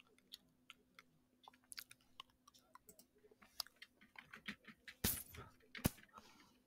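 Faint computer keyboard typing: scattered keystroke clicks, with two louder clacks about five and six seconds in.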